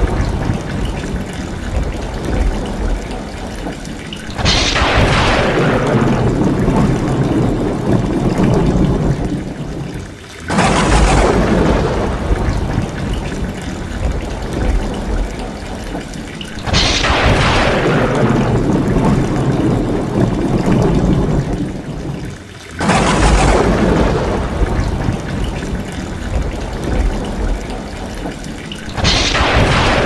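Heavy rain, with runoff pouring off the edge of a tiled roof, and five thunderclaps about six seconds apart. Each clap is a sudden crack that fades into a low rumble.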